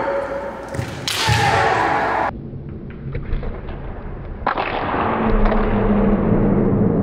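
Kendo exchange: a bamboo shinai striking the opponent's kote (padded gauntlet), with shouted kiai and feet stamping on the wooden floor. A loud burst comes about a second in and breaks off sharply; another loud stretch begins about four and a half seconds in and holds.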